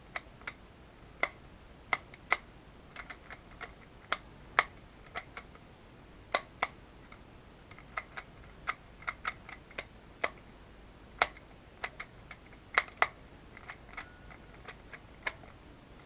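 A custom magnetic Rubik's Clock being handled: irregular sharp clicks as its dials are turned and its pins pushed, a few every second or two and sometimes two in quick succession.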